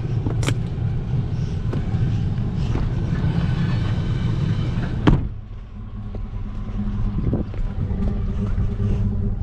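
A vehicle engine running steadily, with a sharp bang about five seconds in, after which the engine sounds quieter.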